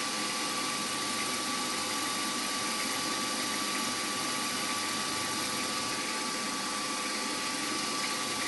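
Milling machine spindle running steadily with a 2.2 mm drill feeding right through a carburettor body block: a constant motor hum with a thin steady whine.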